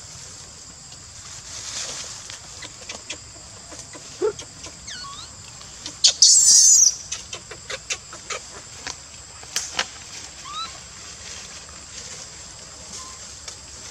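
Outdoor ambience with a steady high insect drone, scattered ticks and a few short falling chirps. About six seconds in comes the loudest sound, a harsh high rasp lasting under a second.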